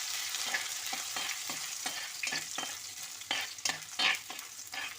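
Chopped garlic and ginger sizzling in hot oil in a kadai, stirred with regular strokes of a spatula about three times a second, as they fry to brown.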